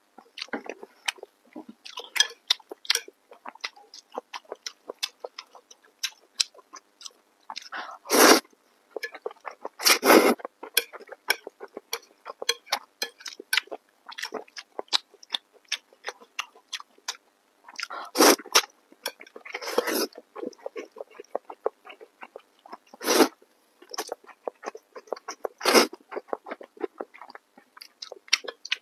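Close-miked wet chewing and lip smacks of a person eating thick noodles, a quick run of small clicks, broken about six times by louder slurps as strands are sucked in.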